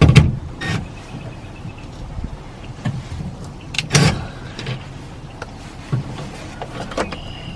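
Scattered knocks and clicks of parts being handled and fitted inside a car door, the loudest right at the start and about four seconds in.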